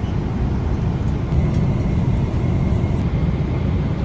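Steady low rumble of an airliner's cabin noise: engine and airflow drone heard from inside the plane.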